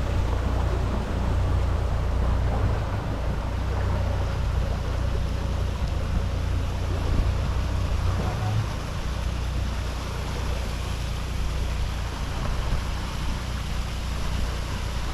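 Boat motor running steadily, a continuous low rumble under wind and water noise.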